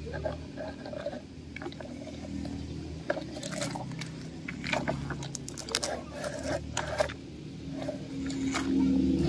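Plastic toy tanker truck pulled over dry dirt and dead leaves: irregular crunching and crackling from its wheels and the debris, over a low rumble.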